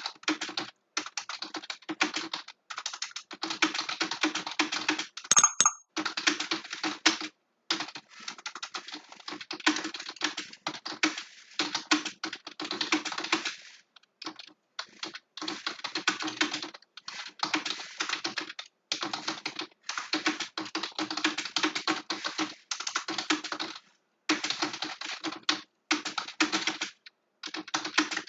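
Fast touch-typing on a computer keyboard: rapid runs of key clicks broken by short pauses. About five seconds in there is one brief, louder sound with a short tone.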